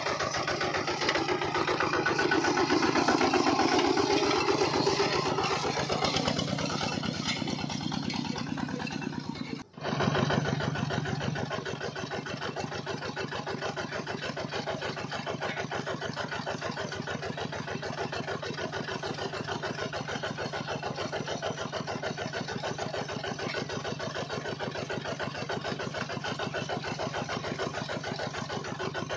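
A small miniature model engine running steadily with a fast, even chugging rhythm. It is louder for the first several seconds, cuts out briefly about ten seconds in, then carries on steadily a little quieter.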